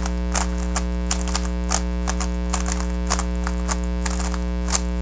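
GAN 356 RS non-magnetic 3x3 speed cube being turned fast through a repeating move sequence, its plastic layers clicking about two to three times a second. A loud steady electrical hum runs underneath.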